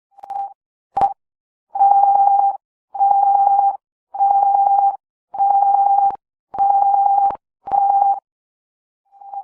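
Electronic emergency-alert alarm tone: a single steady pitch beeping on and off about once a second, with two short beeps at the start and then a run of longer beeps.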